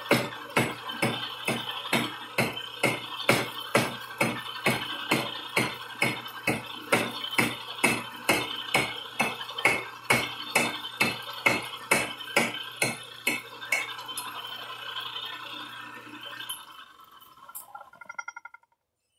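Metal lathe taking an interrupted cut on a cut-down section of an LS engine: the tool bit strikes the uneven work once per revolution, a sharp clack a little over twice a second over the motor's hum. About fourteen seconds in the clacks stop, the motor cuts off a couple of seconds later, and the spindle coasts down with a few fading clinks.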